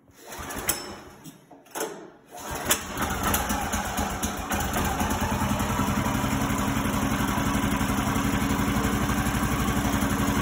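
Kohler small engine on a Woodland Mills HM130Max sawmill being recoil-started cold: the starter rope is pulled, the engine catches about two and a half seconds in, runs unevenly for a moment, then settles into a steady idle.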